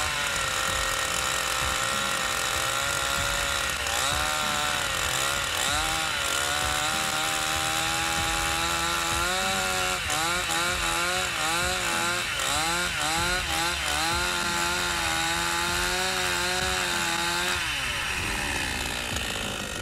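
Two-stroke petrol chainsaw running at high revs into a block of ice. The engine pitch repeatedly dips and recovers as the chain bites, most often in the middle of the run. Near the end the revs fall away as the throttle is let off.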